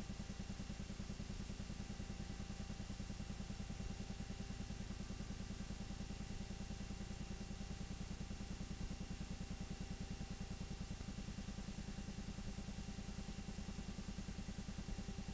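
8mm film projector running: a steady, fast, low mechanical clatter.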